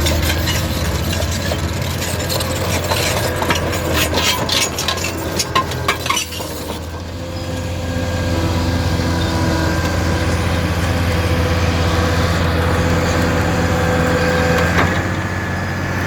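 Diesel engine of a Caterpillar 973D track loader running steadily, with a stretch of sharp clattering knocks from about two to six seconds in.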